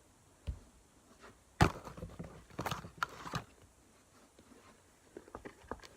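Handling noises: a sharp knock about a second and a half in, followed by a cluster of crinkling clicks and rustling, then a run of small quick clicks near the end.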